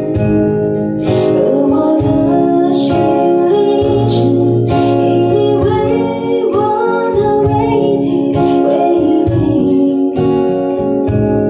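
A song being sung, with a voice carrying the melody over guitar accompaniment.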